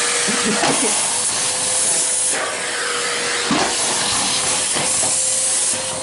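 Nilfisk vacuum cleaner running steadily: a loud rushing hiss of suction with a steady motor whine, as the floor nozzle is worked over the floor.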